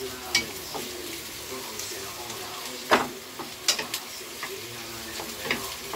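Sliced chayote and carrots sizzling in hot oil in a frying pan while a spatula stirs them. The spatula knocks and scrapes against the pan a few times, loudest about three seconds in.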